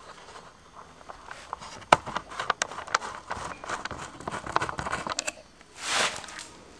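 Handheld camera handling noise: scattered clicks and rustles, one sharper click about two seconds in, and a brief rush of rustling about six seconds in as the camera swings away.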